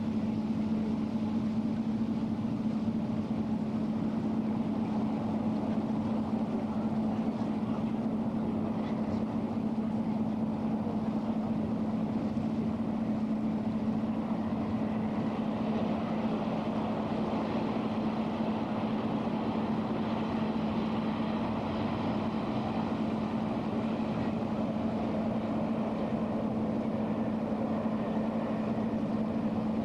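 Lake cruise boat's engine running at a steady pace: one low hum that holds its pitch throughout, over a constant rushing noise of water and air.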